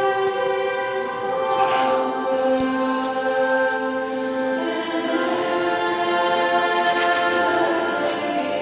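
A woman singing slow, long held notes, echoing in a church.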